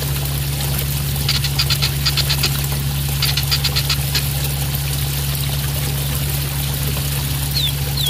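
Juvenile white-rumped shama calling over steadily splashing water from a small cascade fountain: two quick rattling strings of high clicking notes, then a short falling whistle near the end. A steady low hum runs underneath.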